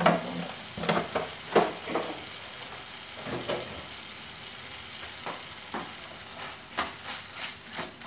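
Shredded chicken sizzling steadily in a frying pan, with irregular scraping and tapping strokes as a silicone spatula stirs it. The strokes cluster in the first two seconds and again near the end.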